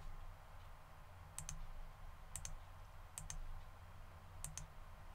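Computer mouse button clicked four times, about a second apart, each click a quick double tick of press and release, over a faint low hum.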